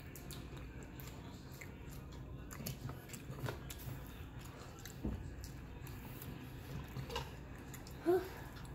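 A person chewing and eating close to the microphone, with scattered small clicks and crunches. A brief pitched, voice-like sound comes near the end.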